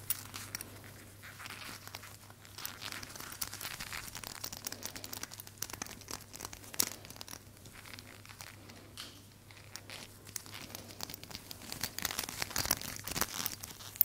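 Close crinkling and crackling of something being handled, a dense run of small quick crackles that thickens about twelve seconds in, over a steady low hum.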